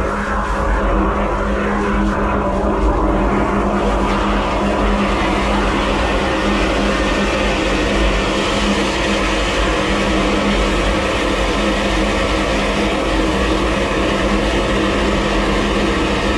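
High-pressure drain jetter running steadily, its engine and pump humming under the rush of water as the jet clears a blocked sewer branch line into the manhole. The rushing hiss grows louder about four seconds in.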